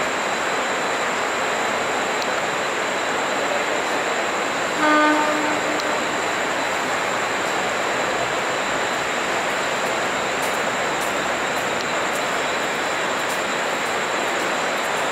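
Steady running noise of an approaching 1500 V DC electric multiple unit suburban train, with one short horn blast about five seconds in.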